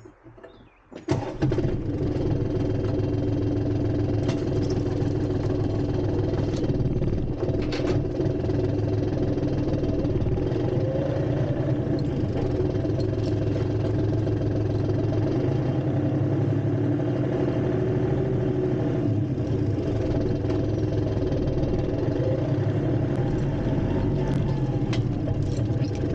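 A vehicle's engine starts about a second in and then runs steadily as the vehicle is driven a short distance.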